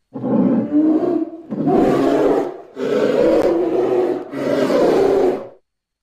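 Creature roar sound effect for a yeti-like cavewoman: four rough, growling roars in a row, each a little over a second long.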